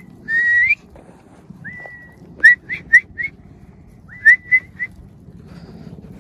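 A person whistling: a few held notes that rise and then level off, then two quick runs of about four short, sharp whistles each.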